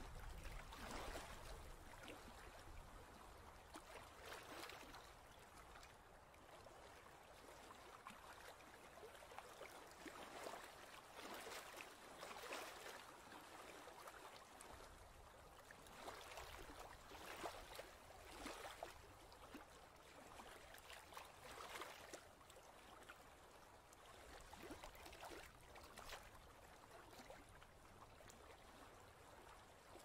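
Faint white-noise ocean wash, a steady watery hiss that swells in soft, irregular surges every second or two.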